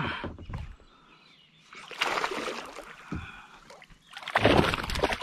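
A hooked bass splashing at the water's surface as it is reeled to a kayak, in three bursts, the last and loudest near the end.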